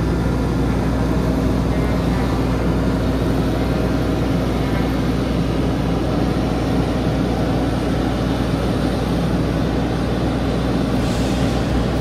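Heavy harvest machinery running: the steady engine drone of a combine harvester and tractor at work, with a deep even hum.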